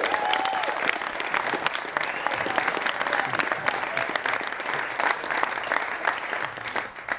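Wedding guests applauding: a roomful of hands clapping densely, thinning out near the end. A brief voice calls out at the start.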